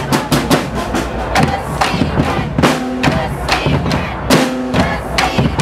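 Marching drum band playing: bass drums and snare drums beating a driving rhythm of sharp, repeated strokes.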